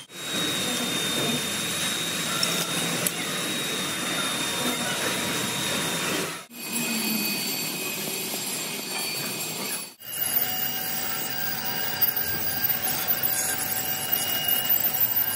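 Metalworking machinery running with a steady noise and a thin high whine, broken by edit cuts into separate stretches. In the last stretch there is a run of sharp metallic clicks and clatter.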